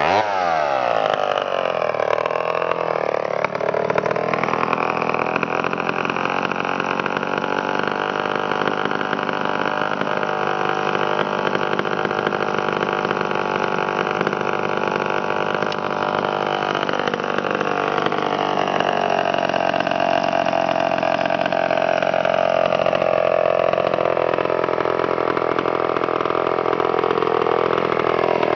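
Large Homelite two-stroke chainsaw coming down off throttle from cutting speed to idle in the first couple of seconds, then idling steadily after the cut, a little louder near the end.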